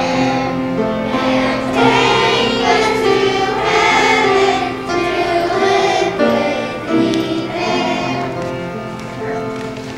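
Children's choir singing with musical accompaniment, sustained sung notes throughout, growing quieter near the end.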